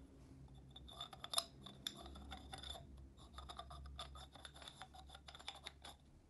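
Metal maze puzzle being worked: an aluminium inner cylinder slides and twists inside an aluminium outer tube. From about a second in there is a quick string of clicks and scrapes, with a ringing metal tone.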